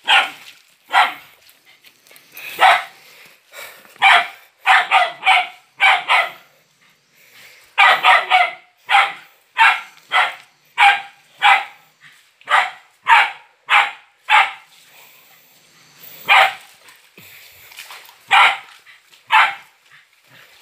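Hunting dog barking at a monitor lizard held at bay by its tail. About twenty short barks come in quick runs, broken by two short pauses.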